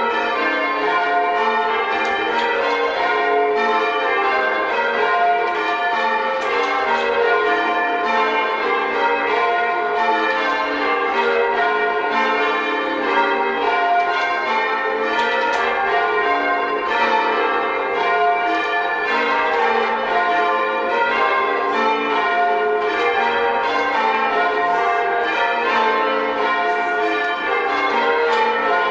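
Ring of six church bells with a 14 cwt tenor being rung in changes: a continuous, evenly paced stream of bell strikes, the bells sounding one after another in turn with overlapping ring.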